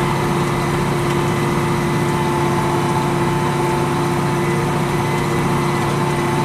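Case 4690 tractor's diesel engine running steadily under way, heard from inside the cab: an even drone with a constant hum and no change in speed.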